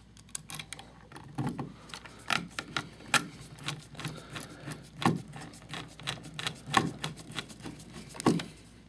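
Screwdriver driving a light switch's mounting screw into the electrical box: a run of small, irregular metal clicks and scrapes, with a few louder knocks.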